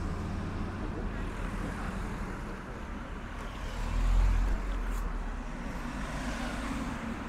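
Street traffic: cars driving past close by with a steady low rumble, one passing loudest about four seconds in.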